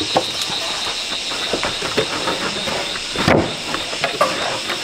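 Light knocks and scrapes from wooden formwork boards being handled and lined up, with one louder thump about three seconds in, over a steady high hiss.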